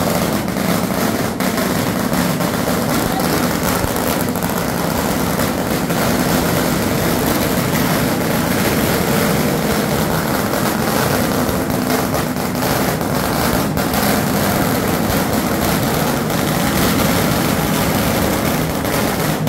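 A long string of firecrackers going off in a dense, continuous crackle.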